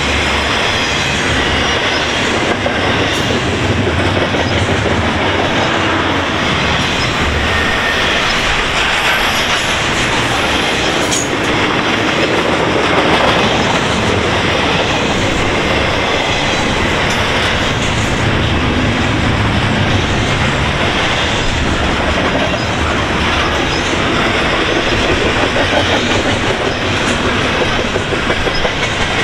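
Double-stack intermodal well cars of a long freight train rolling steadily past: the continuous loud rumble and clatter of steel wheels on the rails.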